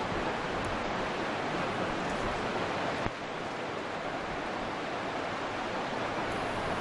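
Steady rushing of a river in the gorge below, an even hiss without a break, with a brief click about three seconds in.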